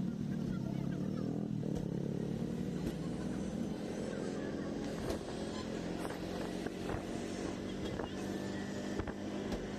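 Auto-rickshaw engine running steadily while riding, heard from inside the open cabin, with a few short knocks and rattles.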